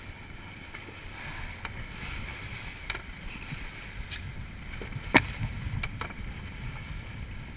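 Water rushing and splashing along the hull of a wooden log canoe sailing hard, with wind buffeting the microphone. A few sharp knocks punctuate it, the loudest about five seconds in.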